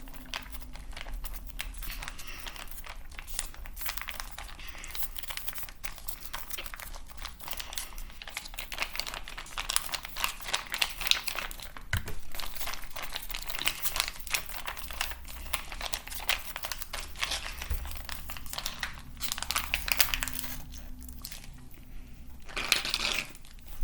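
Juice box crinkling and crackling as it is squeezed and drunk through its straw, a dense run of small crackles with a few louder squeezes.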